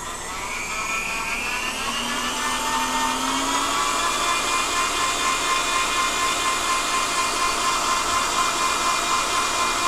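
Electric stand mixer motor running at high speed, its balloon whisk beating butter into cooked-flour (ermine) frosting in a stainless steel bowl. The whine rises in pitch over the first few seconds as the mixer speeds up, then holds steady.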